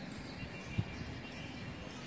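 Steady low background noise, with one short low thump a little under a second in.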